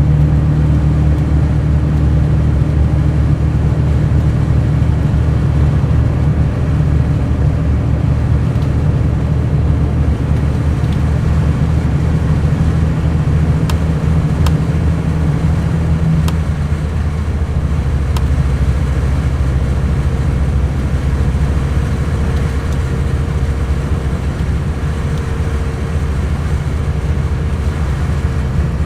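Mercedes-Benz O500 RSD coach's inline-six diesel engine running steadily, its note shifting slightly about halfway through.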